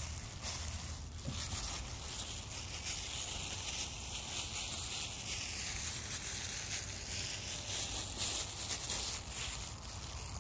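Steady rustling hiss with a low rumble and soft irregular ticks, from walking across grass with a phone in hand.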